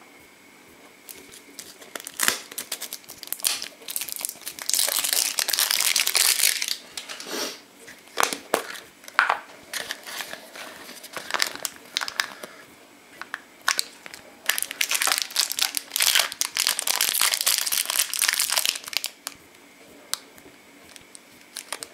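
Thin clear plastic wrapper crinkling and crackling as it is handled and pulled open to free a small plastic toy. The crinkling starts about two seconds in, comes in irregular spells with two long dense stretches, and dies away near the end.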